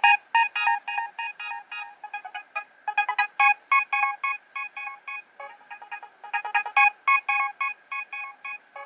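Nokia 3100 mobile phone playing one of its built-in ringtones: a fast melody of short, bright electronic notes, several a second, with a brief pause about three seconds in.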